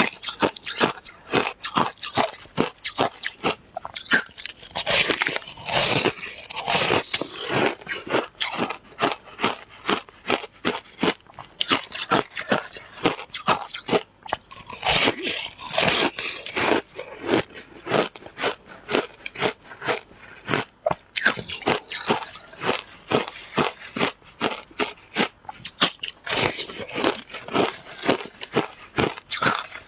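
Close-up crunching and chewing of shaved ice, a rapid run of sharp crunches, several a second, with no let-up.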